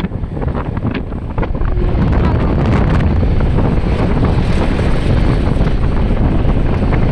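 Wind buffeting a phone's microphone while moving along a road: a loud, steady rumble with no distinct events.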